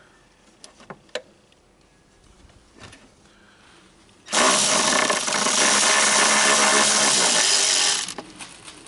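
A few light clicks and taps, then a power drill runs steadily for nearly four seconds and stops abruptly, backing out the battery's negative terminal bolt to disconnect the battery.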